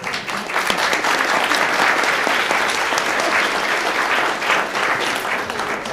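A large seated audience applauding: a dense patter of many hands clapping that starts at once, holds steady, and begins to die away near the end.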